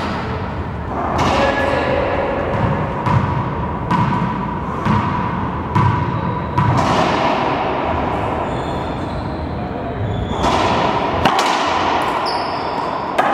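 Racquetball being bounced and struck on an enclosed court: a string of sharp smacks about a second apart, each echoing off the walls, then a quieter stretch and two more hits near the end.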